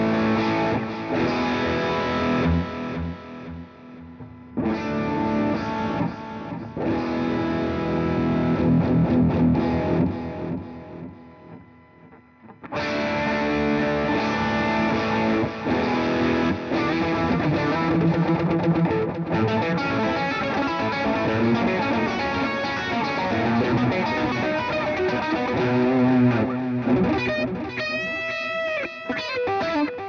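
Electric guitar played through a Marshall Jackhammer JH-1 distortion pedal, switched on, producing distorted chords and riffs. The playing drops back briefly about four seconds in, lets notes die away before coming back in loud about thirteen seconds in, and closes with wavering, bent notes.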